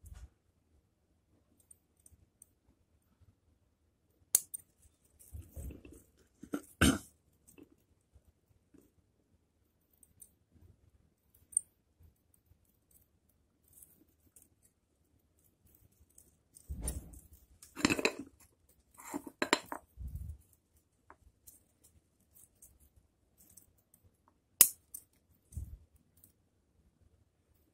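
Bonsai scissors snipping now and then, a few sharp clicks spaced seconds apart, with bursts of rustling and handling noise in between.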